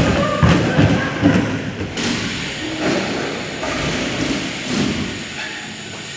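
A BMX rider and his loose bike hitting the ramp after a bail: a run of heavy thuds and metal clatter, loudest in the first two seconds, with another sharp knock about two seconds in.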